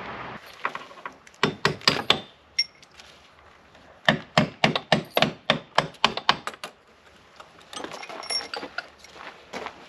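Metal hand tools working on bolts: sharp metallic clicks at about five a second. A short run comes about a second in, a longer run of a dozen or so from about four seconds in, and fainter scattered clicks near the end.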